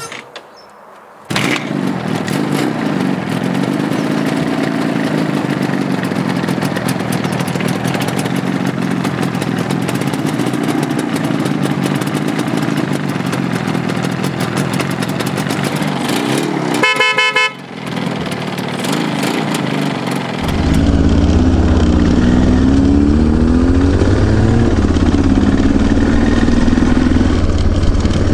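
Water-cooled IZH Jupiter two-stroke twin motorcycle engine starts about a second in and runs steadily, with a short horn beep about two-thirds of the way through. Near the end, riding sound takes over: a motorcycle engine rising and falling in revs under heavy wind rumble on the microphone.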